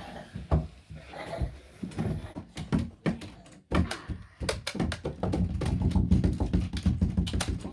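Irregular knocks, clicks and rustling from a gun-like object being handled at close range.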